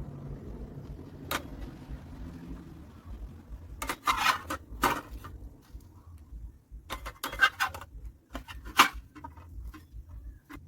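A series of clatters and knocks as hard household objects are handled and set down, the loudest about nine seconds in. A low hum fades out in the first few seconds.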